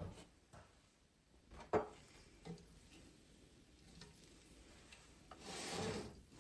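Household objects being handled: a few light knocks and clicks, the sharpest about two seconds in, then a brief rubbing scrape near the end.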